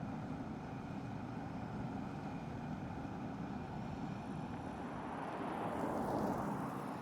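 A car on the move: steady tyre and road noise with no clear engine note, typical of an electric car, swelling to a peak about six seconds in.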